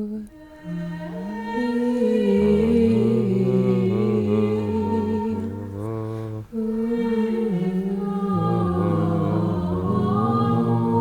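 Slow background music of long held notes that step up and down in pitch, with a low bass line coming in about two seconds in. The music dips briefly near the start and again about six seconds in.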